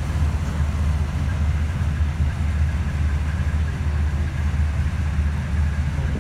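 Diesel engines of heavy military vehicles, an S-400 missile launcher truck and then a BTR-82A eight-wheeled armoured personnel carrier, driving slowly past as a steady low rumble.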